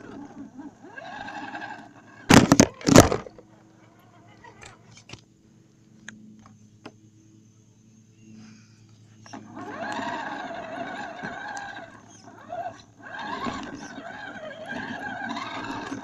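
Onboard sound of an Axial Deadbolt RC crawler: a few loud knocks about two to three seconds in as the truck jolts on the course, then its electric motor and gears whining in two spells as it drives, with a low steady hum between them.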